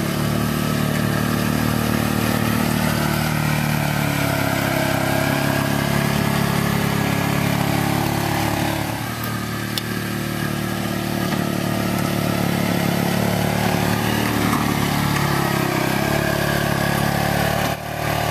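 2013 Arctic Cat 500 ATV's single-cylinder fuel-injected engine running steadily as the machine pushes a snow plow. The engine note eases and shifts briefly about halfway through, and dips again near the end.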